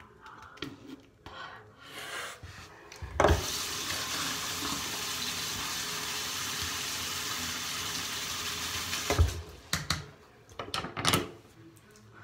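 Bathroom sink tap turned on with a knock about three seconds in, water running steadily into the basin for about six seconds, then turned off with a thump. A few short knocks follow near the end.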